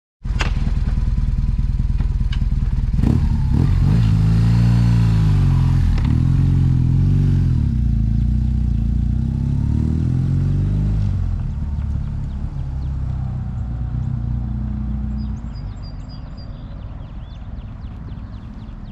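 BMW R1200R motorcycle's boxer-twin engine running, then pulling away, its note rising and falling several times as the rider accelerates and shifts up through the gears, with a few sharp clicks early on. The engine sound then fades as the bike rides off into the distance.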